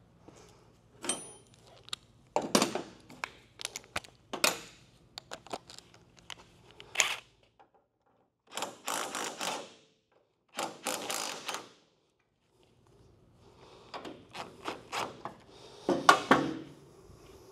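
Metal clicks and knocks from tools working the hinge of a second-generation Camaro door during alignment, with two separate bursts of steady tool noise, each about a second long, near the middle.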